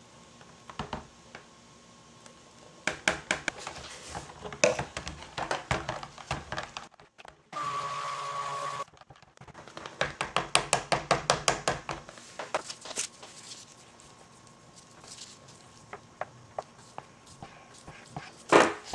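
Cuisinart Smart Stick immersion blender mixing lye water into oils for cold-process soap: a short burst of the motor running about 7.5 seconds in, between stretches of rapid clicking and sloshing as the blender head is worked around the bowl, and a louder knock near the end.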